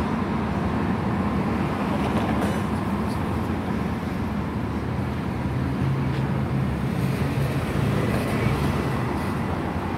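Steady city-street traffic noise, with a car's engine running as it passes close by late on.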